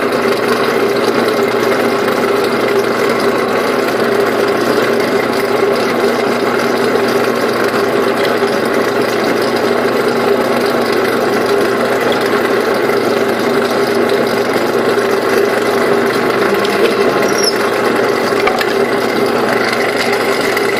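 Drill press running steadily as its bit drills out the collar that holds a magnet in an old toy.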